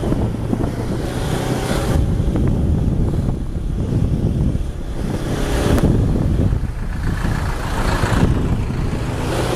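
Small cargo truck engines running close by in road traffic, with a rush of noise swelling several times as the loaded trucks pass.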